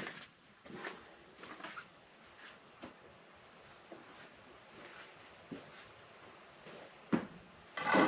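Crickets chirping steadily in a high, thin band, with a few light knocks from handling gear and a sharper clatter of knocks at the very end.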